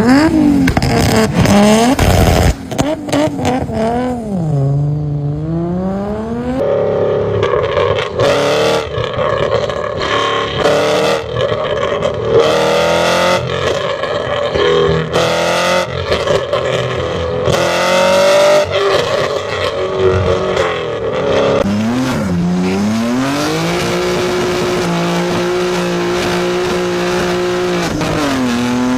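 Japanese sports car engines revving hard and accelerating. The pitch climbs, then drops sharply at each gear change, over and over. There is an abrupt switch to a different car's sound early on, and the engine is held at a steady high pitch near the end.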